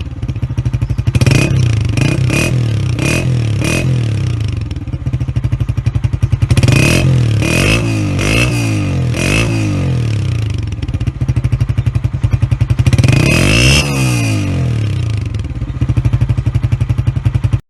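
Honda CG125 single-cylinder four-stroke running through an aftermarket AHL-3 KYH silencer. It idles steadily between quick throttle blips: several in the first four seconds, a run of blips around the middle, and one longer rev toward the end. The sound cuts off abruptly at the end.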